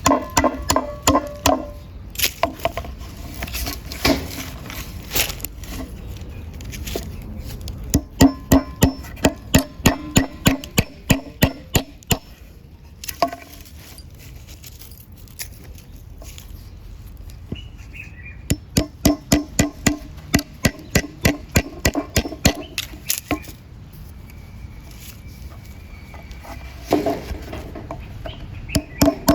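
Background music with a steady, plucky beat: evenly repeating percussive strokes over a few sustained notes, dropping away for a few seconds midway before picking up again.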